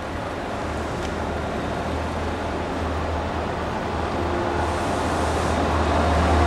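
Diesel locomotive hauling a passenger train approaching, its engine a steady low drone that grows slowly louder.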